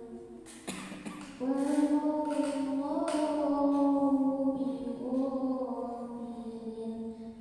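A girl's solo Qur'an recitation in melodic qiro'at style, sung through a microphone. One phrase tails off near the start, and after a short gap a new, long ornamented phrase begins about a second and a half in and is held almost to the end.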